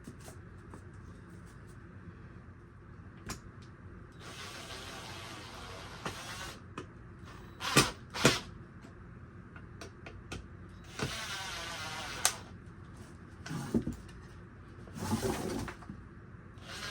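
Hands working a glass pane into a wooden bird-feeder frame. Three scraping slides of a second or two each, light clicks throughout, and two sharp knocks about eight seconds in, the loudest sounds.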